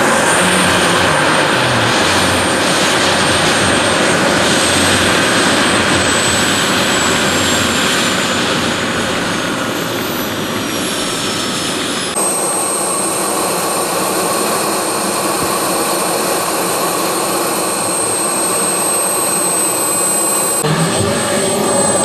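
Model gas-turbine engine of a large radio-controlled Mil Mi-24 scale helicopter running on the ground with its rotor turning: a loud, steady turbine whine. The whine falls in pitch over several seconds partway through, then changes abruptly to a steadier high whine.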